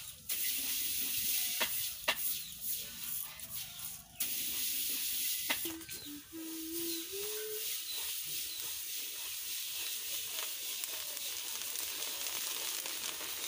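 Rice being stirred through hot sand in a large aluminium pot with a bundle of sticks, a steady sizzling hiss, with a few sharp clicks in the first four seconds. The rice is being popped in the hot sand to make puffed rice (muri).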